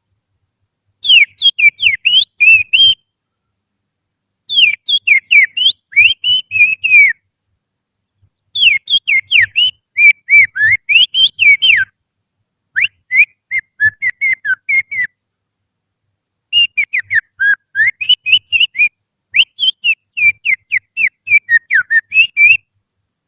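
A person whistling with a little finger in the mouth, imitating oriental magpie-robin song as a lure to set caged magpie-robins singing. It comes as six phrases of quick, sharply falling whistled notes with short silences between them.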